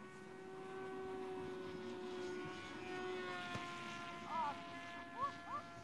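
Electric motor and propeller of a HobbyKing Bixler2 model plane in flight, giving a steady whine that swells a little in the middle as it passes. A few short chirps come near the end.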